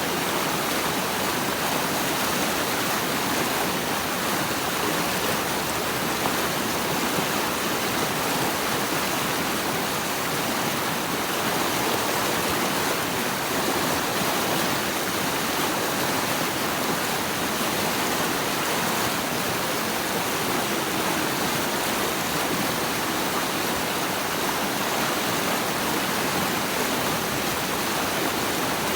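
Running water rushing steadily, an even hiss with no breaks or separate splashes.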